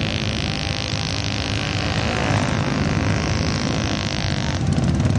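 Several ATV engines running hard as the quads churn through a water pit, with a steady hiss of water spray over the engine drone.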